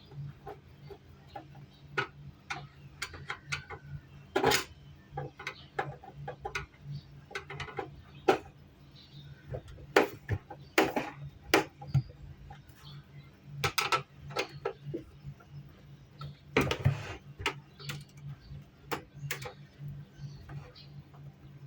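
Irregular light clicks, taps and clatter of small hard objects being handled, over a steady low hum.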